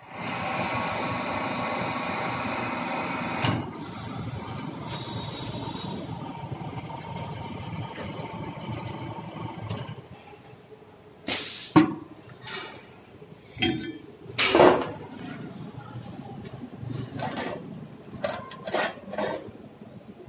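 Square-pipe welding machine running with a steady mechanical hum, louder for the first few seconds and then a quieter drone. Over the second half come a series of sharp metal knocks and clanks.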